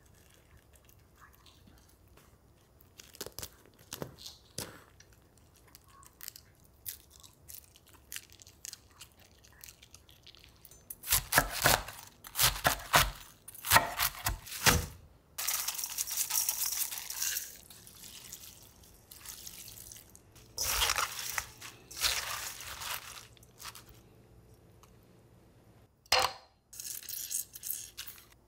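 A Pomeranian quietly nibbling a napa cabbage leaf, with faint soft crunches. About eleven seconds in, a kitchen knife cuts through napa cabbage on a wooden cutting board, making a run of loud, crisp cuts. Further crunchy kitchen food-prep noises follow.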